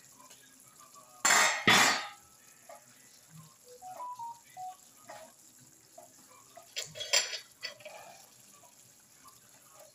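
Metal cookware clattering: two loud clanks about a second and a half in, and a lighter cluster of clinks a few seconds later.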